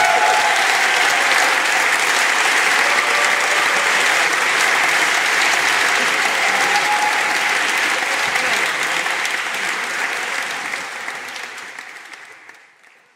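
Audience applauding steadily, with a few voices calling out, fading out over the last few seconds.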